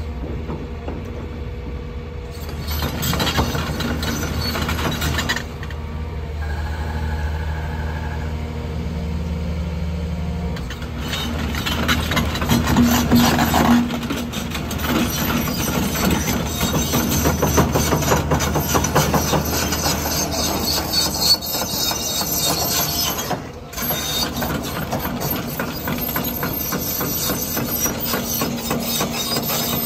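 Develon 225 X2 concept crawler excavator at work: its engine and hydraulics run steadily under load while the tilt-rotator bucket digs and swings. Gravel scrapes and rattles in the bucket throughout, with occasional clanks.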